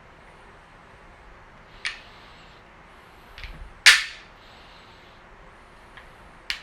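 Sharp clicks and knocks of hard objects, four or five separate strikes, the loudest about four seconds in.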